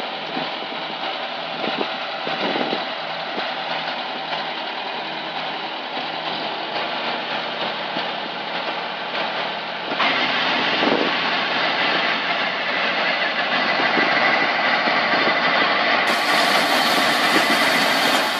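Tractor engine running steadily under load while its Ashmore Engineering straw chopper and blower shreds a round straw bale and blows the straw out, a dense, continuous mechanical noise. It becomes louder and brighter about ten seconds in.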